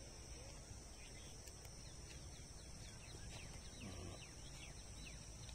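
Faint open-country ambience: a steady high-pitched insect drone, with a bird giving a quick series of short falling chirps through the middle.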